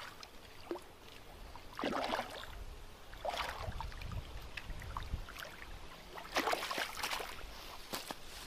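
Hooked fish splashing at the water's surface in several short bursts as it is reeled toward the bank, with a few sharp clicks near the end.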